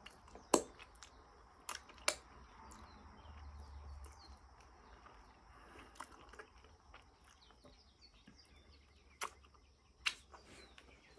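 Quiet chewing and wet lip smacks of someone eating soft durian flesh, with a few sharp mouth clicks: one about half a second in, two around two seconds in and two near the end.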